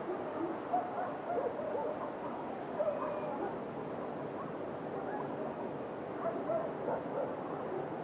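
Dogs barking now and then over a steady hiss of night-time ambience. A few short barks come in the first three seconds and another cluster near the end.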